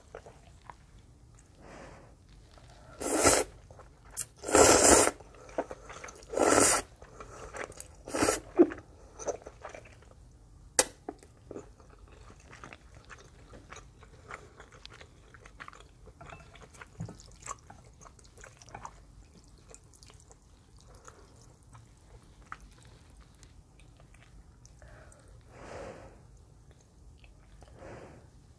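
Close-miked eating of soup noodles: four loud slurps in quick succession about three to nine seconds in, then a long stretch of quieter chewing with small wet mouth clicks, and one softer slurp near the end.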